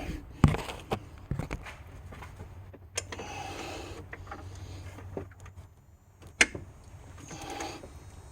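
A few sharp metal knocks and clicks of hand tools: a socket, ratchet and extension being handled and fitted onto the alternator's lower mounting bolt. There are two short hushing noises between them.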